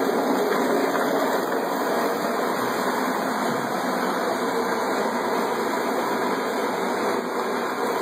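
A 1¼-horsepower garbage disposal running steadily as the motor of a homemade cooler margarita machine, churning margarita mix and ice.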